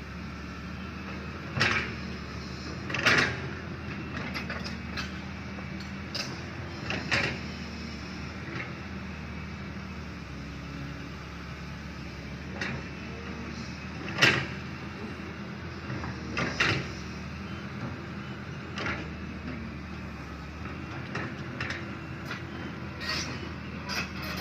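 Excavator diesel engine running steadily while it works, with sharp metallic clanks breaking in every few seconds, the loudest about 2, 3, 7 and 14 seconds in.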